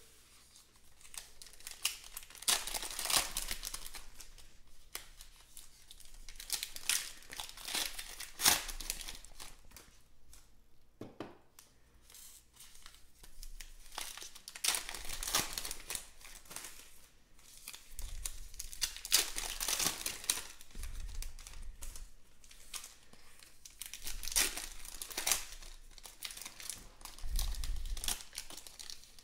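Foil wrappers of Panini Elite Extra Edition baseball card packs being torn open and crinkled by hand, in repeated bursts.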